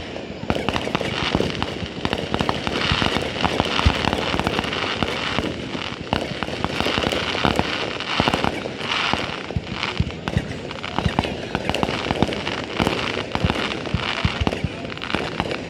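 Fireworks going off in rapid succession: a dense, unbroken stream of crackles and pops with louder bangs scattered through it.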